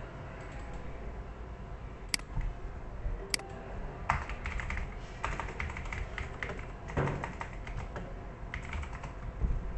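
Typing on a computer keyboard in short runs of keystrokes, after two sharp single clicks.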